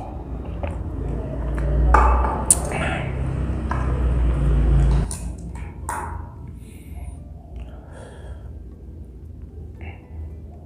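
Utensils clinking and food being handled as a meal of spicy noodles begins, with a sharp click about two and a half seconds in. A low rumble of handling noise stops about five seconds in, leaving fainter scattered sounds.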